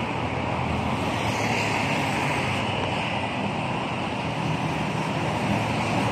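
Steady road traffic: cars and vans running past on the bridge roadway, a continuous mix of engine hum and tyre noise.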